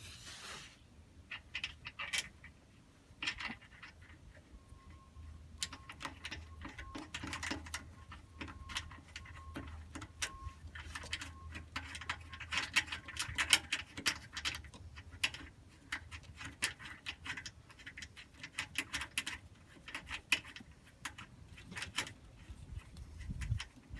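Hand tools and small metal parts clicking and rattling irregularly, with clusters of rapid clicks, over a faint low hum.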